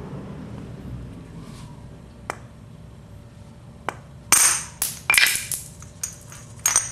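Small metal parts of an OS 46AX II two-stroke model engine clinking and rattling in the hands as the front ball bearing is pressed out of the housing. There are a few single sharp clicks, then a quick flurry of metallic clinks about four seconds in, and another near the end.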